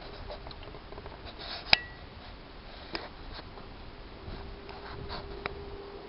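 Ice clicking and clinking, with one sharp, ringing clink about two seconds in. A faint steady hum comes in about four seconds in.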